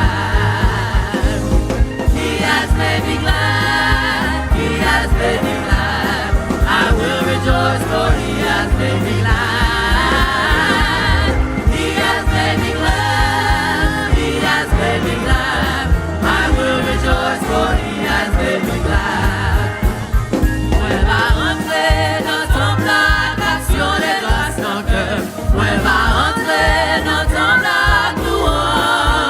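Gospel-style worship song: a choir singing over a band with a steady beat.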